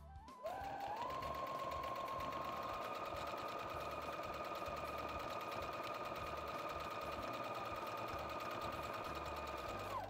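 Electric domestic sewing machine stitching a straight seam at a steady speed. Its motor whine rises as it gets up to speed about half a second in, holds level, and drops away as it stops just before the end.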